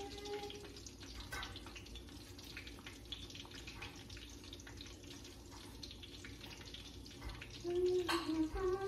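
Light clicks and rustles of food and paper being handled on a countertop while loading a platter, over a steady faint hiss. Near the end a woman hums a few held notes.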